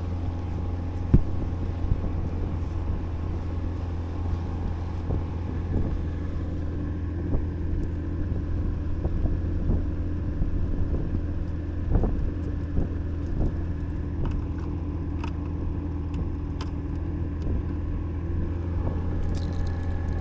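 A fishing boat's engine runs at a steady trolling speed, a constant low hum with a few sharp knocks, the loudest about a second in.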